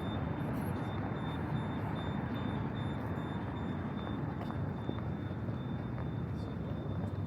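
Steady rumble of city traffic, even and unbroken, with a faint high pulsing whine above it.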